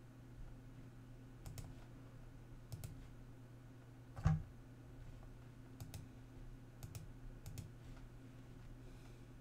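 Scattered clicks of a computer being operated at a desk, about half a dozen, the loudest about four seconds in, over a faint steady low hum.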